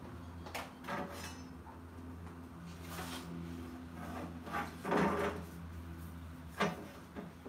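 Tools and wooden boards being handled on a wooden platform: a run of separate knocks and clatters, the loudest about five seconds in.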